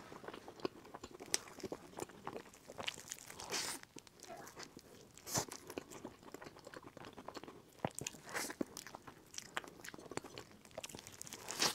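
A person biting into and chewing a crispy fried food, picked up close on a clip-on microphone: a steady crackle of small crunches, with a louder crunching bite every two or three seconds.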